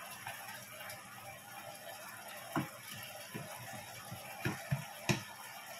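Pork belly sizzling in a frying pan as it browns, with about five light knocks of a wooden spatula and fork against the pan in the second half.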